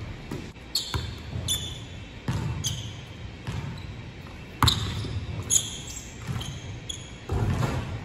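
Basketballs bouncing on a hardwood gym floor in an irregular run of thuds, with short high sneaker squeaks between them; the hall echoes each bounce. The loudest thud comes a little past halfway.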